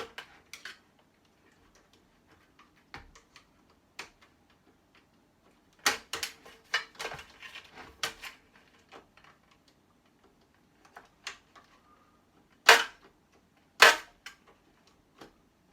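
Hard plastic and metal parts of electronic scrap clicking and clattering as the device is pried and pulled apart by hand. A busy patch of rattling clicks comes in the middle, and two sharp loud knocks about a second apart come near the end.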